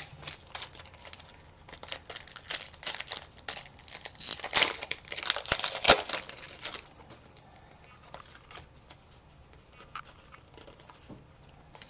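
Foil Pokémon booster pack wrapper crinkling and tearing as it is opened and the cards are pulled out, loudest about four to six seconds in. After that only faint ticks of cards being handled.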